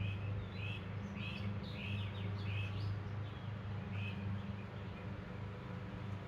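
A bird chirping, a quick run of short calls that stops a little past halfway, over a steady low hum.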